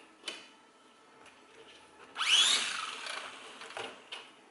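Small quadcopter's brushed motors and propellers whine up in a short burst about two seconds in, then wind down over about a second and a half. A few light handling clicks come before and after.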